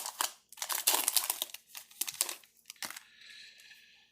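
Crinkling of a trading-card pack's plastic wrapper as it is handled and opened, in quick crackly bursts for about three seconds, then only a faint hiss.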